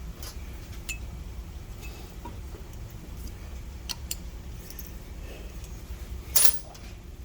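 Small metal measuring tools, calipers and dividers, being handled: scattered light clicks and clinks over a low steady hum, with one louder clink about six seconds in.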